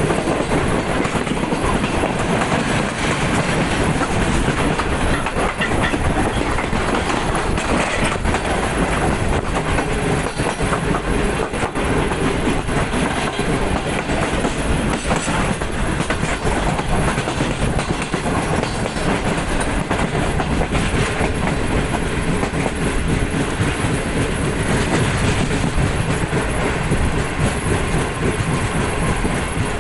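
Passenger train coach running at speed, heard from on board: its wheels clatter over the rail joints with irregular clacks above a steady rushing noise.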